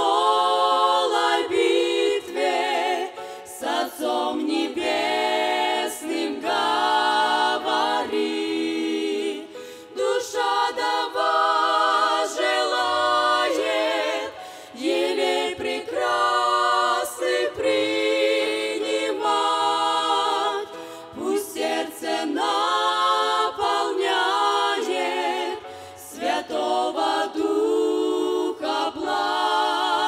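Group of women singing a Christian song together into microphones, with vibrato on held notes and short breaks between phrases.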